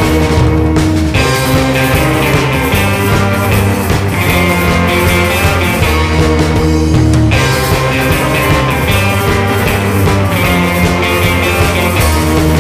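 Surf rock band playing: electric guitar over bass guitar and drums, steady and loud, with no singing.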